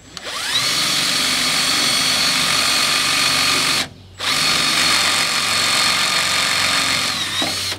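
Cordless drill driving a long Torx-head screw into a 2-inch wood board. The motor whines up to speed and runs steadily, cuts out briefly about four seconds in, then runs again until just before the end. The screw is being driven without a pilot hole, which these screws like to have.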